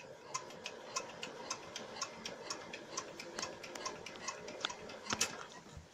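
A machine with a large wheel, turned by pedalling or cranking, clicking steadily about three to four times a second over a faint hum, with a louder knock shortly before the end.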